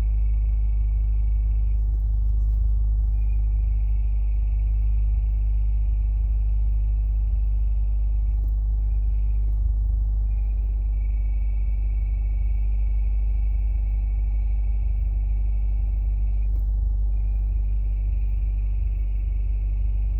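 2017 Subaru WRX's turbocharged flat-four idling with a steady high-pitched squeal over its low rumble, the squeal that comes when the clutch pedal is depressed. The squeal drops out briefly four times, about two, eight, ten and seventeen seconds in.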